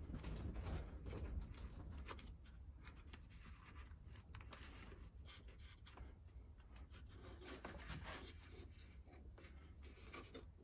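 Faint rustling and rubbing of a paper template strip and masking tape being pressed and smoothed by hand onto the wooden planking of a model ship hull, with many small scratches and taps, over a low steady rumble.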